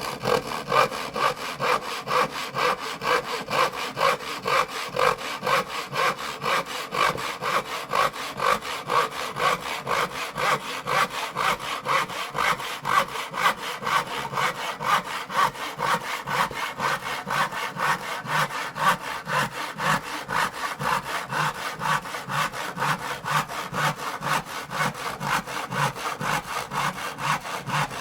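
Hand saw cutting through wood in a steady, quick rhythm of back-and-forth strokes.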